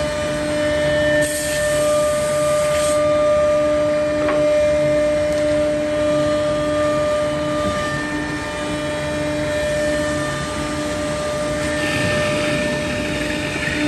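A 5-axis CNC woodworking machine running: a steady spindle whine over an evenly pulsing machine hum, with bursts of hissing noise about a second in and again near the end.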